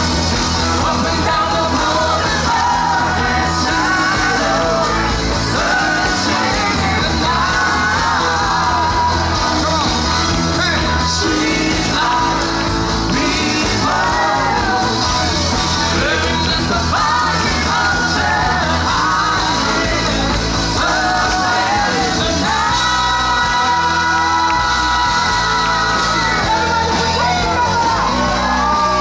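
Rock song with a lead singer over a full band.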